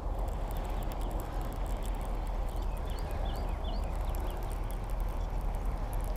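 Baitcasting reel being cranked steadily, its gears giving a fine rapid ticking over a low steady rumble. A small bird chirps several times about three seconds in.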